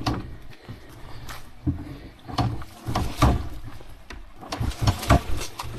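Motorcycle creeping down a muddy slope: a low engine rumble at slow revs with repeated knocks and rattles, busiest about halfway through and near the end.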